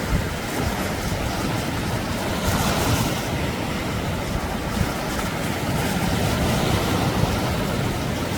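Sea waves washing onto the beach in a continuous surf, with wind rumbling on the microphone.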